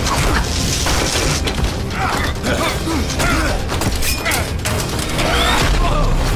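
Action film fight soundtrack: music under a run of hits and impact sound effects.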